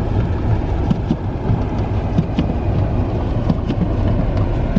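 Car driving on a snowy road: a steady low rumble of engine and road noise, with scattered faint ticks.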